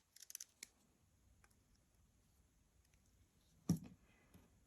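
Faint small clicks of jewelry pliers and metal findings being handled as a jump ring is opened: a quick cluster of clicks at the start, scattered light ticks, then a single sharper tap about three and a half seconds in.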